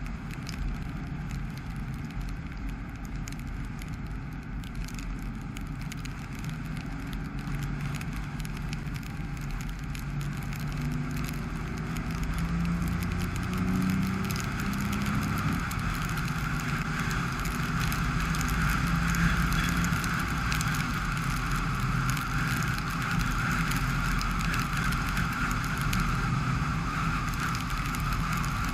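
Dacia Sandero Stepway driving on wet roads: a steady drone of engine and tyres, with the engine note rising as the car accelerates about halfway through, then louder steady road noise.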